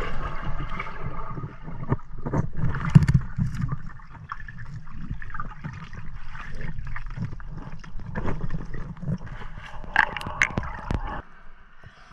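Underwater gurgling and muffled rumble of river water, with scattered clicks and knocks, which cuts off suddenly about eleven seconds in.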